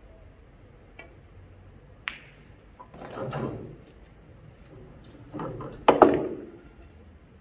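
A pool shot: a light click of cue on ball about a second in, then a sharp clack of ball striking ball. This is followed by two rumbling, knocking runs as the pocketed ball drops and rolls inside the table, the second ending in the loudest knock.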